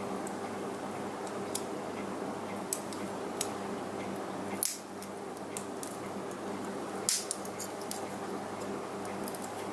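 Small painted plastic model-kit parts clicking as they are pressed and snapped together by hand: a scattering of sharp clicks, with the loudest snap near the middle and another strong, doubled one about seven seconds in.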